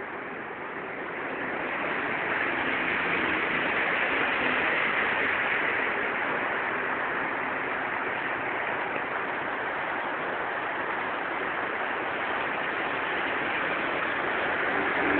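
Steady hiss of rain falling on a wet road, with the swish of traffic passing on the wet tarmac. It grows louder about two seconds in.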